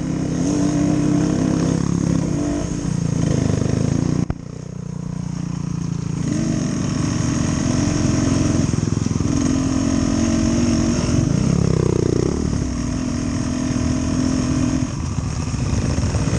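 Dirt bike engine running and being revved in a series of held blips. There is a sudden drop in level with a click about four seconds in, after which the revving builds back up.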